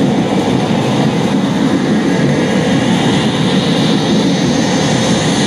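Pachinko machine's bowling-reach effect sound from its speakers: a steady, rumbling bowling-ball roll with a faint rising whine over it, cutting off suddenly at the end.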